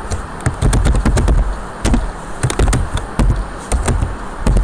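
Computer keyboard being typed on: a quick, uneven run of key clicks, each with a dull thump underneath.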